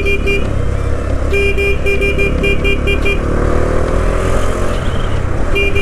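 Horn tooted in a quick run of short, evenly spaced beeps, about five a second, stopping and starting again. Under it is the steady low rumble and wind noise of the motorcycle ride.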